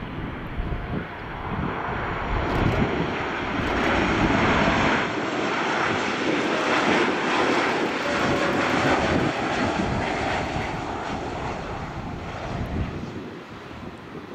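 Boeing 737-800's CFM56-7B turbofan engines on final approach. The jet roar swells as the airliner passes, loudest around the middle, then fades as it moves off down the runway.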